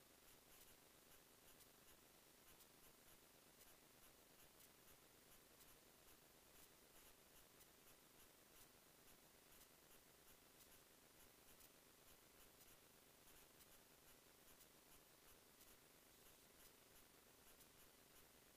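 Near silence: a faint, even hiss with light, irregular ticks.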